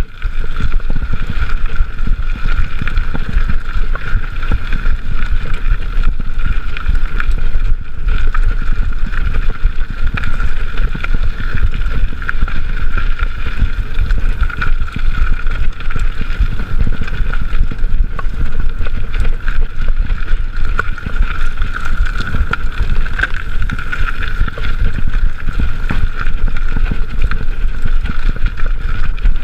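Mountain bike riding over a forest singletrack: steady rumble and rattle of tyres and bike over the ground, with wind buffeting the chest-mounted camera's microphone and a steady high hum.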